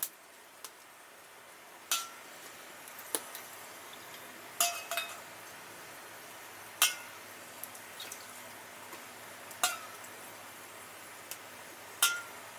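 Metal utensil clinking against a metal Sierra cup while cooking, about eight sharp strikes spaced irregularly, some leaving a brief ring.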